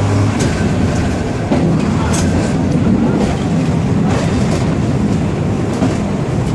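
Vintage electric tram running along the track, heard from the driver's cab: a steady rumble of wheels on rail, with irregular clicks and knocks as the wheels pass over rail joints and points.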